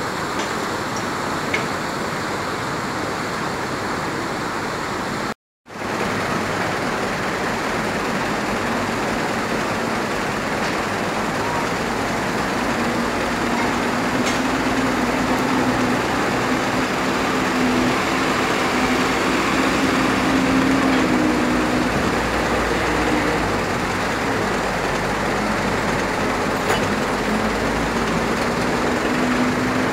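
Caterpillar 320D excavator's diesel engine running under work over the steady rush of a rocky river's rapids. The sound cuts out completely for a moment about five seconds in; from about twelve seconds on a steady engine hum stands out more strongly.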